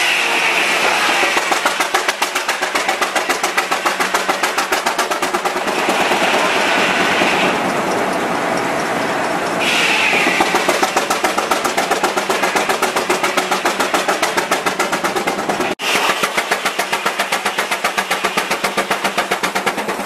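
Advance-Rumely steam traction engine running under load, its exhaust beating out rapid, even chuffs. Three times a higher rushing sound rises over the beat for a second or two.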